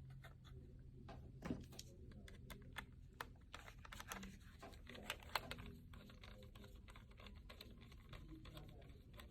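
Faint, irregular clicks and light taps of a small screwdriver and screws as the screws are driven back in to refit the newly installed SSD. A few clicks stand out louder.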